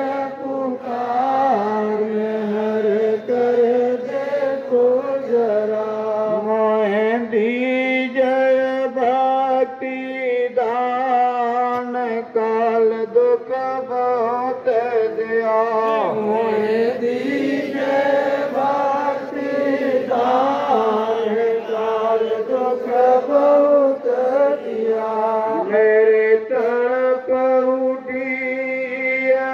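Devotional chanting by several voices together, melodic and unbroken.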